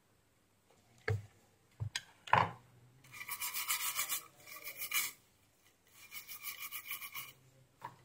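A few sharp knocks, then a bristle brush scrubbing a phone's circuit board in rapid back-and-forth strokes, in two bouts, cleaning flux residue from the freshly soldered micro USB charging port.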